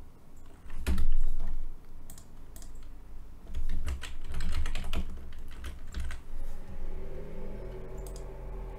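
Computer keyboard typing in short bursts of keystrokes, a loud cluster about a second in and a longer run in the middle.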